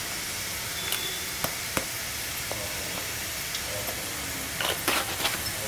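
Garlic, green chillies and cumin frying in hot oil in a kadhai over a high gas flame: a steady sizzle with scattered sharp crackles, and a short cluster of crackles near the end.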